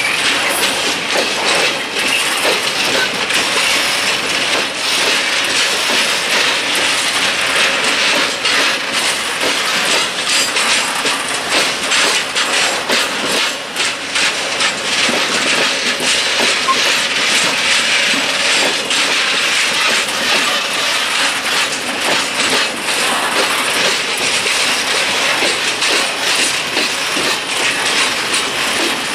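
Loaded open coal wagons of a freight train rolling past, their wheels clacking and rattling steadily over the rail joints with a dense metallic rumble.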